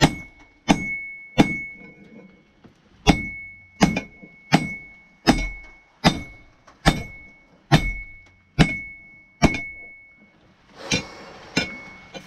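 Forging hammer blows on hot steel over an anvil, about one strike every 0.8 seconds, each followed by a high, lingering anvil ring. The blows pause briefly about two seconds in and again near ten seconds, where a rushing hiss rises under the last few strikes.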